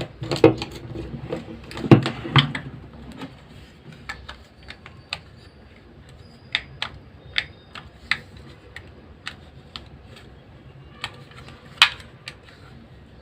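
Hand work on a small hair trimmer: irregular clicks and light knocks of small hard parts being handled and fitted. They come thick and fast for the first few seconds, then thin out to scattered single clicks.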